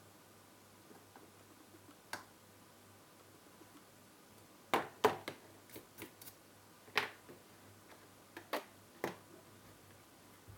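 Side cutters snipping off the excess leads of a newly soldered-in chip on a circuit board. About a dozen sharp clicks come in an irregular run: one about two seconds in, the rest between about five and nine seconds in.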